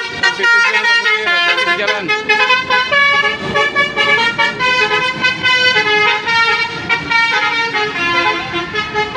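Basuri V3 telolet musical horn on a bus playing a melody: a quick run of changing notes, with several pitches sounding together.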